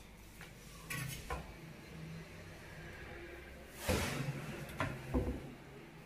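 Kitchen cabinet door being handled and opened, with several light knocks and a louder clatter about four seconds in.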